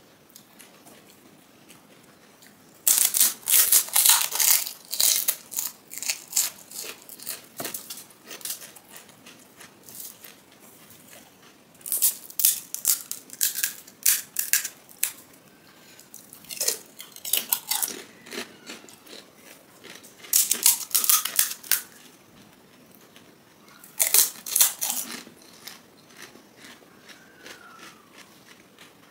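Crisp, hollow panipuri (golgappa) shells cracking and crunching, in about five bursts of sharp crackling, the first starting about three seconds in. Quieter chewing comes between the bursts.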